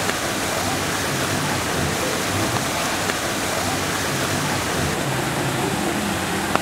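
Small waterfall splashing into a shallow pond: a steady rush of falling water.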